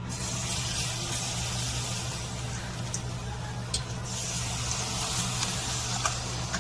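Battered squid deep-frying in oil: a steady sizzle with a few faint pops.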